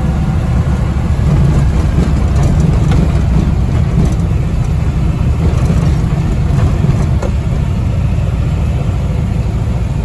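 Car driving along, heard from inside the cabin: a steady, loud, low rumble of engine and road noise.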